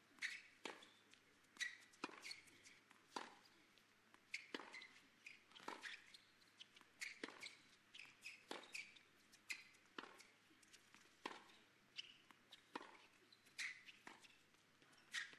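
Tennis ball being struck by rackets and bouncing on a hard court during a long rally: a series of short, sharp pops, roughly one every half second to second and a half.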